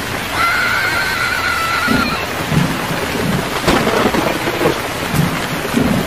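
Steady rain with a sharp crack of thunder about midway and soft low rumbles. A long, wavering, high-pitched call sounds over the rain during the first two seconds.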